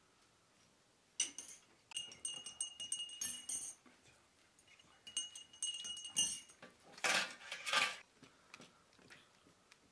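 Spoons clinking against tea glasses and plates: two spells of rapid ringing clinks, then two short scratchy noises near the end.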